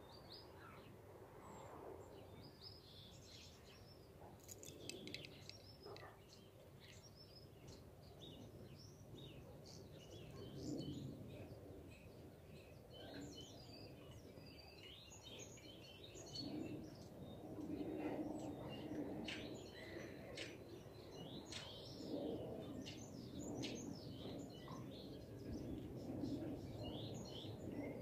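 Several small songbirds chirping and twittering in short, high calls throughout, faint, over a low background noise.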